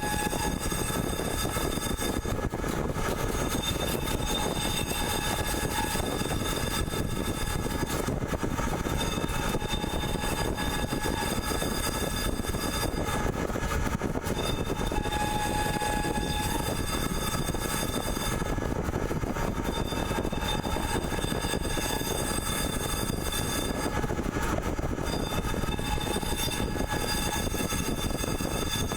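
CNC pipe threading machine running: a steady, loud mechanical noise with several high whining tones that start and stop every few seconds.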